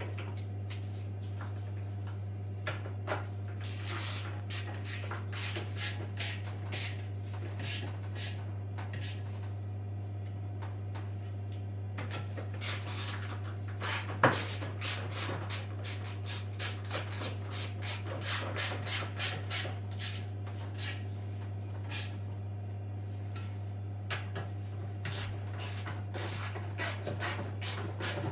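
Hand work on a washing machine: many short clicks, knocks and scraping strokes, some in quick runs, over a steady low hum.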